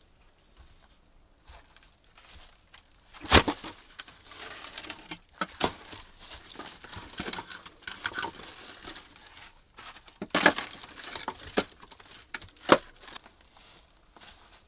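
Dry leaves crunching underfoot and dry branches and logs being handled and stacked on a woodpile, with several sharp wooden knocks.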